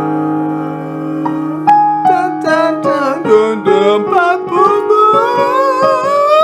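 A held piano chord, then a solo voice comes in about two seconds in and sings a vocal warm-up scale over piano notes, stepping down in pitch and then climbing back up.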